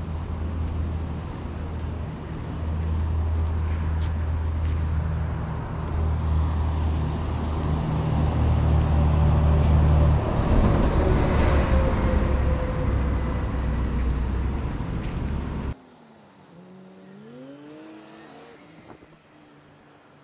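Road traffic: a car passing close by with a heavy low rumble, loudest about midway. The rumble cuts off suddenly about three-quarters of the way through, leaving a fainter engine that rises in pitch.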